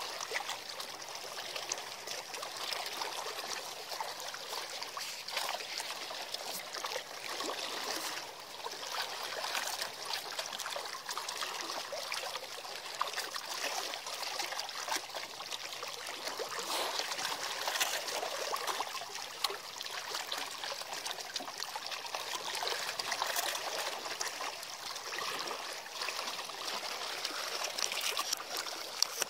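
Seawater lapping and trickling, a steady wash of small splashes.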